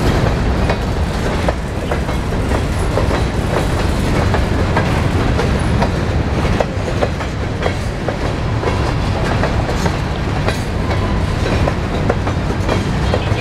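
Empty covered hopper cars of a freight train rolling past close by: a loud, steady rumble with the clickety-clack of wheels over rail joints and many sharp clicks and rattles.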